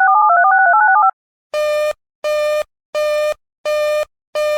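A rapid string of two-note touch-tone (DTMF) signalling tones for about a second. Then comes a run of identical short buzzy beeps, evenly spaced about three every two seconds, with the fifth starting near the end. These are control and signalling tones in broadcast alert audio, between two emergency messages.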